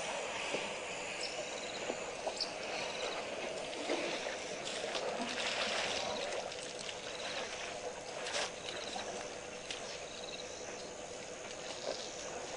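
Water splashing and trickling as African elephant calves drink at a waterhole, dipping their trunks in and drawing water up, over a steady hiss.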